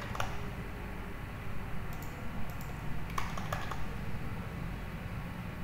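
Computer keyboard being typed on: scattered keystrokes with a quick run of clicks about three seconds in, over a steady low hum.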